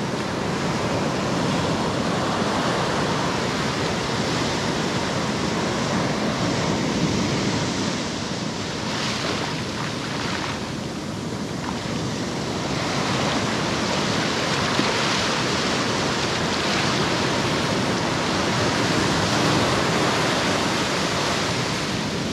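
Ocean surf breaking and washing up a sandy beach: a steady rush of water that eases slightly for a few seconds in the middle.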